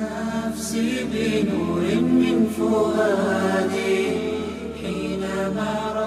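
A solo voice singing an unaccompanied Islamic nasheed in a chanting style, with held, gliding notes over a steady low hum.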